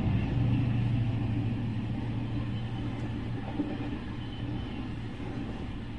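Freight train passing over a level crossing: the diesel locomotive's low engine rumble fades as it moves off, under the steady rolling noise of covered freight wagons.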